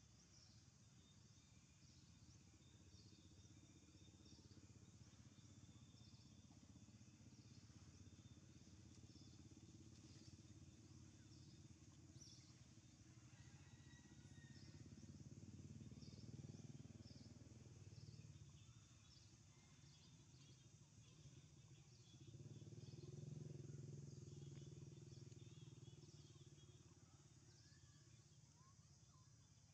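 Faint outdoor ambience: a low engine-like rumble, as of distant traffic, swells twice, about halfway through and again two-thirds through, with scattered faint high chirps throughout.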